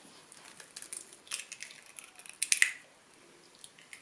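Eggshells being cracked and broken open by hand. There is a crack about a second in and a louder double crack about two and a half seconds in, with small clicks and wet squishes around them.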